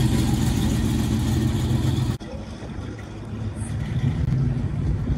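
Chevrolet Chevelle's engine idling steadily, cut off abruptly about two seconds in, leaving quieter outdoor background noise.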